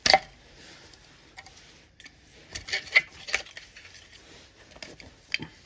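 Sharp clicks and knocks of small metal engine parts from a disassembled Mercury 4 hp outboard being handled: one loud knock at the start, a quick cluster of several about two and a half to three and a half seconds in, and one more near the end.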